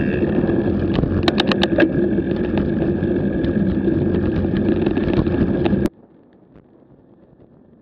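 Bicycle riding fast down a gravel road, heard through a bike-mounted action camera: loud, steady wind rush and tyre noise, with a quick run of sharp gravel ticks about a second in. Near the end it cuts abruptly to a much quieter road rush.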